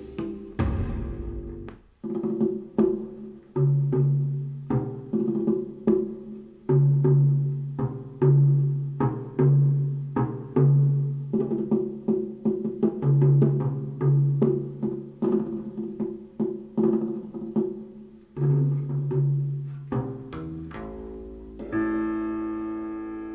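Instrumental music played back through 10GDSh full-range loudspeakers: a run of struck, quickly decaying low pitched notes like tuned drums. A sustained keyboard chord comes in near the end.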